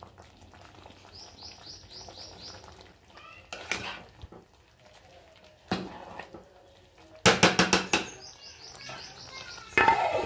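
A spatula stirs cooked basmati rice in a pot, scraping and knocking against it, with a cluster of quick clatters in the second half. A steel lid clanks onto the pot near the end. A small bird chirps a quick run of high notes twice in the background.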